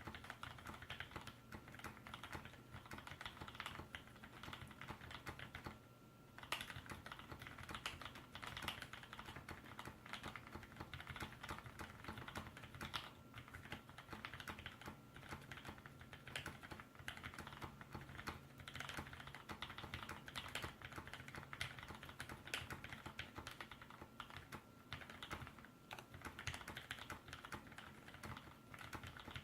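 Steady typing on a ZZ96 mechanical keyboard with 58g Gateron Clear linear switches and GMK ABS keycaps: a fast, dense run of key clacks, with a short pause about six seconds in.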